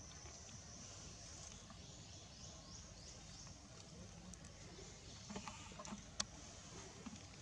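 Faint outdoor ambience: a steady high chirring with a short chirp repeating about twice a second, and a few light clicks and rustles of dry grass and leaves in the second half as the monkeys move.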